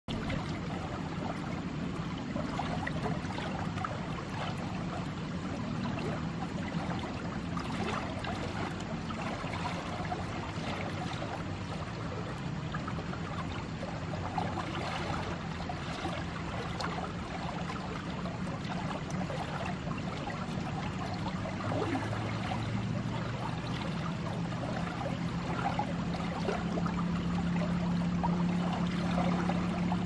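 Fast water rushing steadily through a stone-walled concrete irrigation channel. A low steady hum sits underneath and grows stronger near the end.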